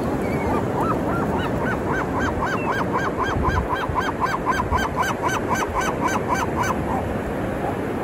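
Gull giving a long, rapid series of arching calls, about four a second for some six seconds, over the steady wash of ocean surf.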